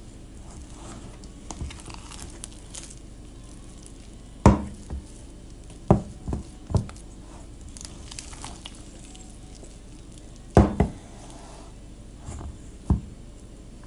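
Wet sourdough dough being stretched and folded by hand in a metal bowl: soft sticky squelching, with several dull thumps spread through it as the dough is lifted and dropped back into the bowl.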